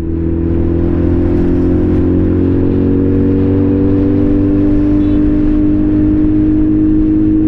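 Sport motorcycle's engine running under steady throttle, its note rising slowly as the bike gathers speed, with wind rush over the helmet-mounted mic.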